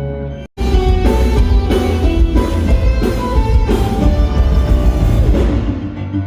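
Music with bass, drums and guitar, cutting out abruptly for a split second about half a second in, then resuming with a steady beat.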